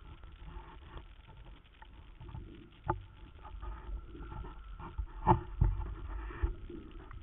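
Muffled underwater rumble of water moving past a submerged camera, under a faint steady whine, with a few sharp knocks about three seconds and five seconds in.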